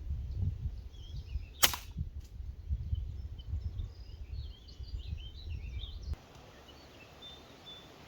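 A single pellet air rifle shot about a second and a half in: one short, sharp crack. Small birds chirp after it.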